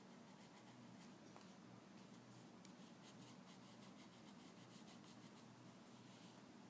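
Pencil scratching on paper in short strokes, faint, with a quick run of strokes in the middle, over a low steady hum.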